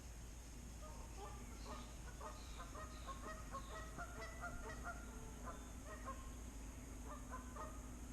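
A flock of geese honking, many short calls overlapping, starting about a second in and dying away near the end.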